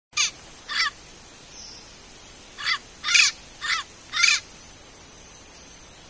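Turquoise-fronted parrot (Amazona aestiva) giving six short calls: two about half a second apart, then, after a pause of nearly two seconds, four more in quick succession, about two a second.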